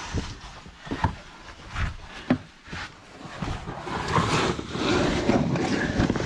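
Cavers crawling under a low rock: a few sharp knocks of gear or boots against rock, then a denser stretch of scraping and shuffling from about three and a half seconds in.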